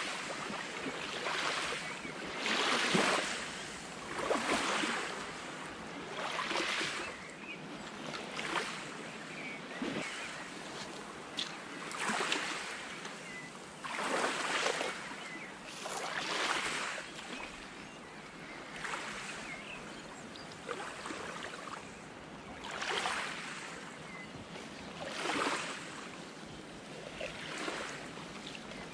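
Small waves breaking and washing up on a lake beach, a new swell of noise every two seconds or so.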